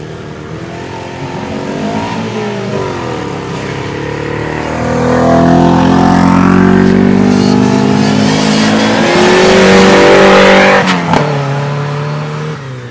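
Off-road racing buggy engine revving hard under acceleration, its pitch rising and falling with the throttle. It is loudest through the middle and drops away sharply with a click about eleven seconds in.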